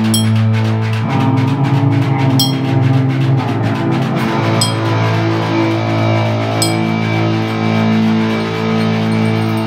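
Improvised instrumental music: baritone electric guitar and bass holding sustained low notes that shift about a second in, with a sharp click about every two seconds.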